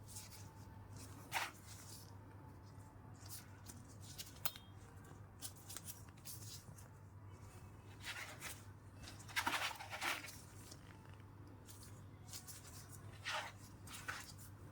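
Hand tools being handled: scattered clicks, clinks and short scrapes, the loudest cluster a little past halfway, over a steady low hum.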